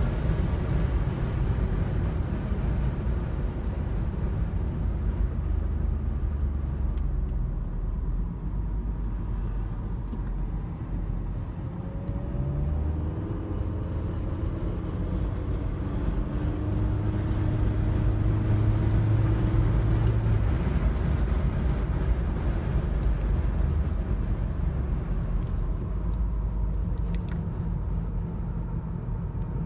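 Car engine and tyre-and-road noise heard from inside the cabin while driving at speed. The engine note climbs about twelve seconds in, then holds a steadier, stronger drone for a few seconds before settling back into the rumble.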